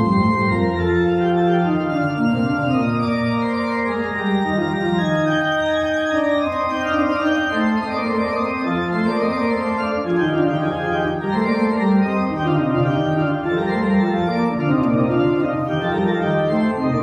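Church organ played from a two-manual console: sustained chords of several voices over a moving bass line.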